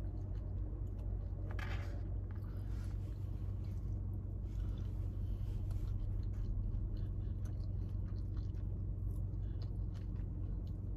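A person chewing mouthfuls of a grain bowl, with light taps of a fork in a paper bowl, over a steady low hum in a car's cabin.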